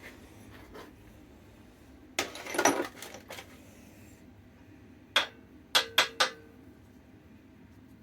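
Steel workshop parts, press support plates and a gear, being handled and set down: a short scraping rattle about two seconds in, then four sharp metallic clinks about five to six seconds in, the last ones ringing briefly.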